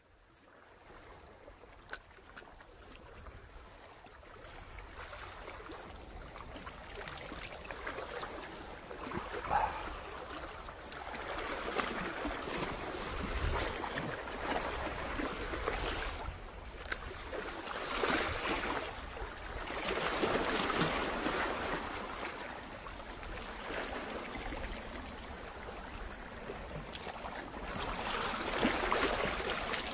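Small waves washing over and draining off low, weedy rocks at the sea's edge, a rushing and trickling that swells and ebbs every few seconds.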